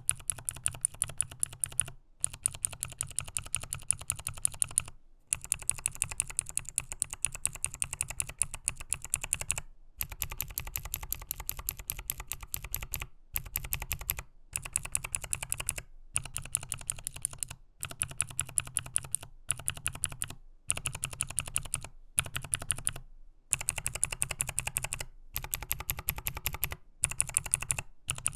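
Typing on a mechanical keyboard fitted with clicky Outemu switches, including Outemu New 2 clicky switches, whose click does not come from a click-bar. Fast runs of sharp key clicks are broken by brief silences every few seconds.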